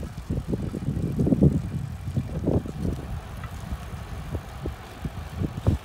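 Wind buffeting the microphone while riding along with road cyclists: irregular low rumbling gusts, with a sharper thump near the end.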